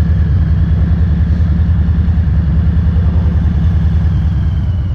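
Harley-Davidson FXLR's V-twin engine running at low, steady revs, with a pulsing exhaust note and no revving.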